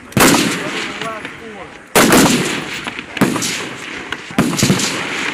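Rifle shots on an outdoor firing range: two loud shots about two seconds apart, each with a long echoing tail, followed by several quieter shots.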